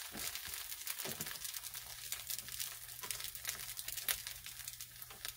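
French toast frying in butter in a stainless steel pan: a soft, irregular sizzle of fine crackles. A faint low steady hum comes in about a second and a half in.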